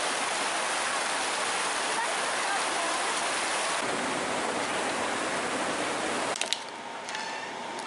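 Steady rushing noise that cuts off abruptly about six seconds in, followed by a few light clicks.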